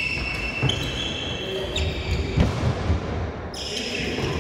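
Badminton play on an indoor court: shoes squeaking in short high tones on the floor, with several sharp knocks of rackets hitting the shuttlecock and of feet landing.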